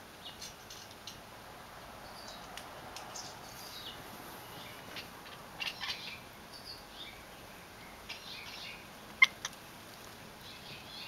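Cats chattering at birds, mixed with the birds' own calls: scattered short, high chirps and clicks, with one louder, sharp chirp about nine seconds in.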